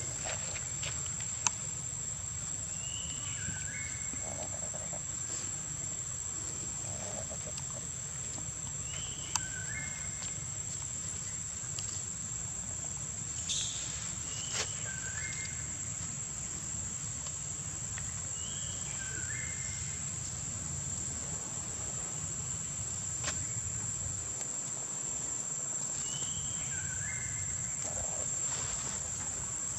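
Steady high-pitched insect drone, with a bird repeating a short call that steps down in pitch about every five to six seconds, over a low rumble.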